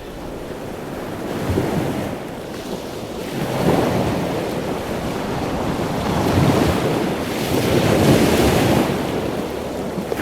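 Wind buffeting the microphone over water washing in, the rush swelling and easing every couple of seconds.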